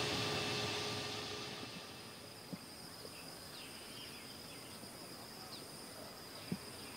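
Jet engine noise from an Airbus A321neo taxiing on the runway, fading out within the first two seconds. Then only quiet outdoor ambience is left: a steady high insect buzz, scattered faint bird chirps and a couple of faint ticks.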